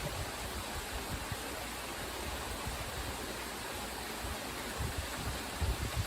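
Steady rushing of falling water, a waterfall ambience, with a low rumble swelling near the end.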